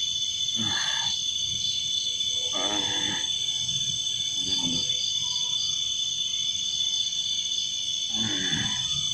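A man in a possession trance growling and roaring in four short vocal bursts, over a steady, high-pitched chorus of crickets.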